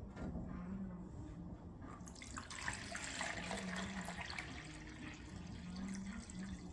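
Water poured from a glass carafe into a plastic measuring jug, splashing as the jug fills, starting about two seconds in.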